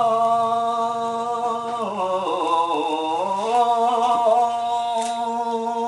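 A man's voice chanting a long sung phrase, the wayang puppeteer's chant. It holds a steady note, sags lower about two seconds in and climbs back a second or so later.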